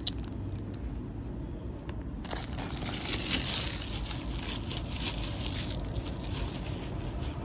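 Plastic wrapper of a 1988 Score baseball card rack pack crinkling and tearing as it is opened, starting about two seconds in and easing off near the end.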